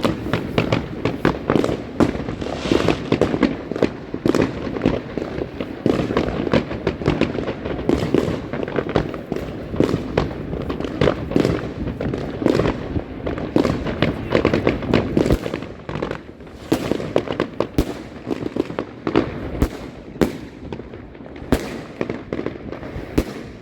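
New Year's fireworks and firecrackers going off all around: a dense, irregular barrage of cracks, pops and bangs over a steady rumble, thinning out to sparser bangs in the second half.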